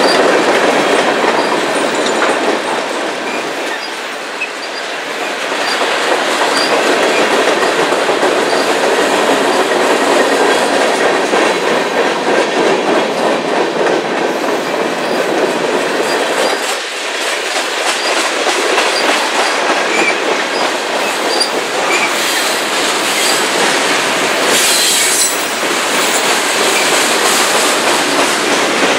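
Freight cars of a passing train, tank cars and covered hoppers, rolling by close at hand: a steady rumble and clatter of steel wheels over the rails. A brief high-pitched wheel screech comes near the end.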